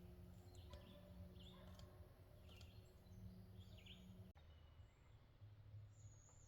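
Near silence: faint outdoor ambience with a few short, distant bird chirps over a low steady hum.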